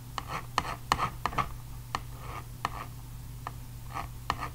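Metal palette knife mixing thick oil paint on a paper palette: short scraping strokes broken by sharp clicks as the blade taps and lifts off the paper.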